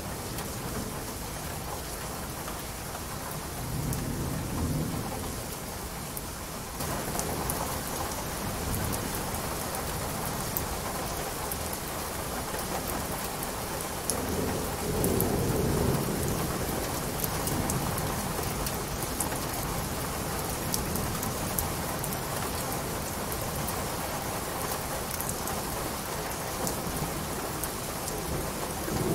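Steady heavy rain with scattered sharp drop ticks and thunder rumbling low. The rumbles swell about four seconds in and again around fifteen seconds, and the rain's hiss grows brighter about seven seconds in.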